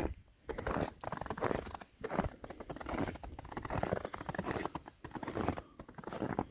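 Footsteps crunching through snow at a steady walking pace.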